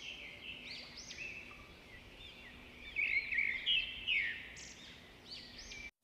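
Recorded birdsong, many quick chirps and trills over a faint steady low tone, played back through a smartphone speaker in a speaker test. It cuts off abruptly near the end.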